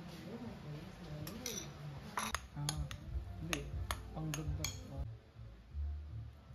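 Metal spoon clinking against a bowl about eight times while stirring melted butter into mashed potato, sharp clinks bunched from about one to five seconds in.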